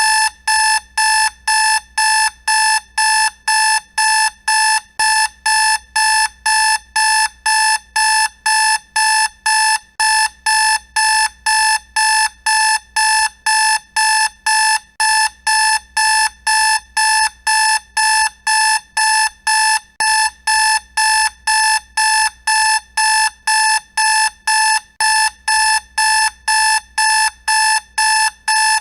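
Electronic alarm clock beeping: short, loud beeps of one high tone, about two a second in an unbroken, even pattern, starting abruptly.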